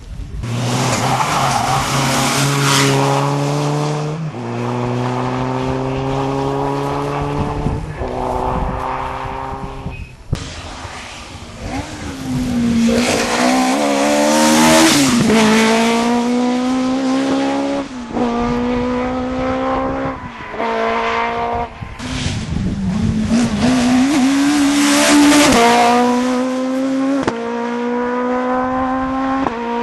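Rally cars at full throttle, the engine pitch climbing and dropping back again and again as they upshift through the gears. There are several separate runs, each accelerating hard, with tyre noise over the engines.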